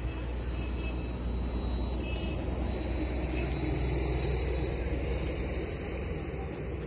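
Wind rumbling on the microphone: a steady low rumble with an even hiss of noise over it.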